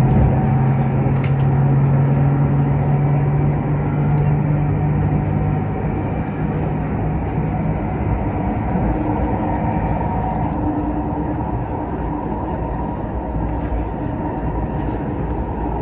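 Tuen Ma line train standing at a station platform: a steady hum and rumble, with a low tone that fades out about seven seconds in.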